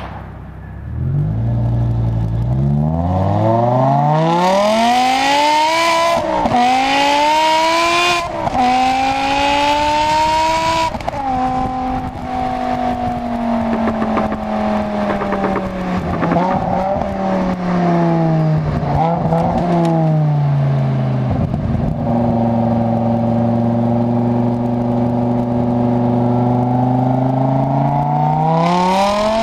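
BMW M6 exhaust, with 100-cell race-cat headers, secondary cats deleted and stock resonators and mufflers, accelerating hard through the gears, with upshifts about 6, 8 and 11 seconds in. The engine then winds down, holds a steady cruise, and starts to rev up again near the end.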